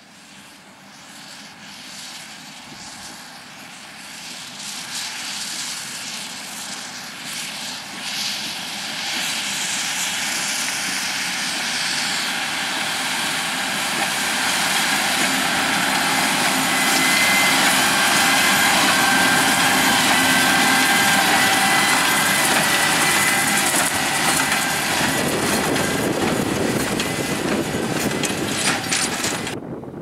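John Deere 6250R tractor working under load, pulling a Case IH LB436 HD large square baler through straw. Engine and baler together make a steady mechanical noise with a high whine, growing louder as the outfit approaches and loudest about two-thirds of the way through.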